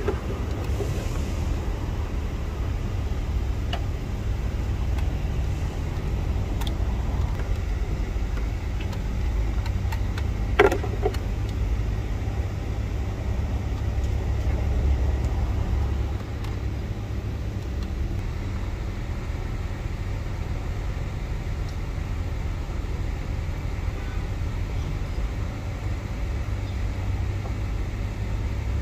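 Steady low mechanical rumble, with a few faint clicks and one sharper metallic clank about ten seconds in.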